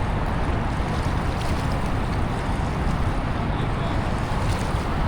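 Steady rushing roar of water pouring through a dam spillway.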